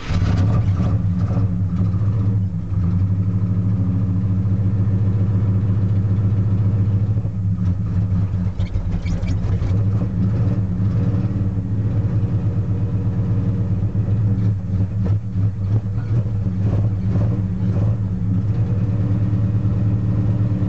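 AMC 360 V8 of a 1981 Jeep J10 running steadily just after a cold start in freezing weather, heard from inside the cab; the cold engine won't yet idle on its own.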